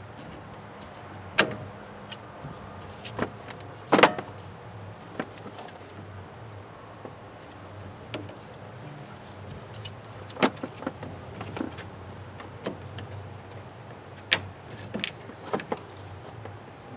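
Scattered sharp metallic clicks and clanks of hand tools and parts being handled while a truck's radiator is taken out, over a steady low hum.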